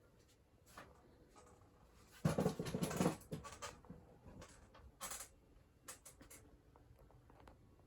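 Handling noise: a loud rustling scrape lasting about a second, about two seconds in, then scattered light taps and scratches.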